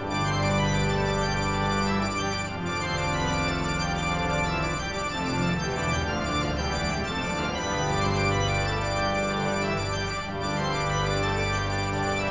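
Instrumental keyboard music with sustained organ chords, played back from a vinyl LP.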